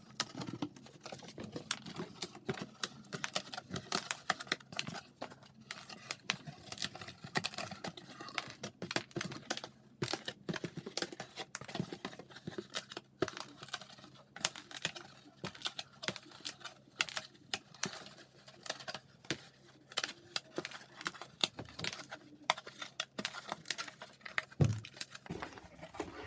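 Die-cut pieces being popped out of a cardboard kit sheet one after another: many quick, irregular snaps and clicks of card, with one dull knock near the end.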